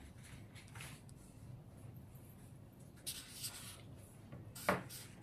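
Marker pen drawing on paper: a few short, faint scratchy strokes, a longer stroke about three seconds in, and one sharp tap a little before the end.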